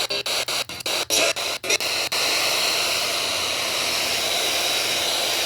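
Weather radio receiver hissing with loud static, cutting out briefly several times in the first two seconds, then a steady hiss.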